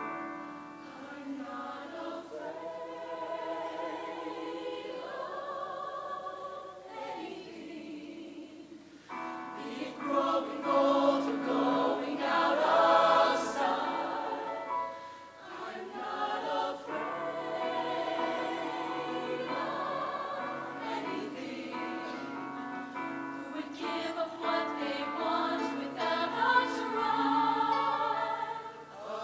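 A mixed-voice high school show choir singing, swelling loudest about ten to fourteen seconds in.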